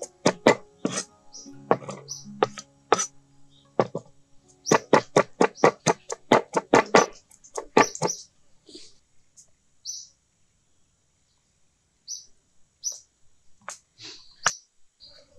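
Cleaver chopping chillies and garlic on a wooden board: sharp knocks in runs, fastest at about five a second a few seconds in, thinning out and stopping after about eight seconds. Birds chirp in short notes throughout.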